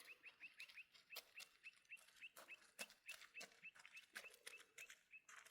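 Faint, rapid, even series of short high chirps, about four or five a second, from a small bird, with scattered soft clicks.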